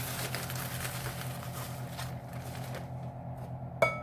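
Dry graham cracker crumbs pouring and rustling into a measuring cup, fading out after about two seconds. A single sharp, briefly ringing clink of a dish comes near the end.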